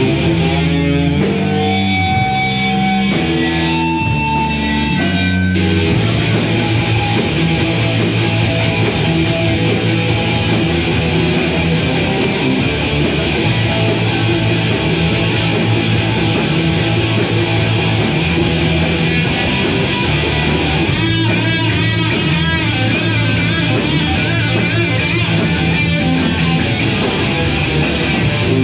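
Guitar-led rock music from a power trio. Single picked notes at first, then about six seconds in a dense, steady full-band sound.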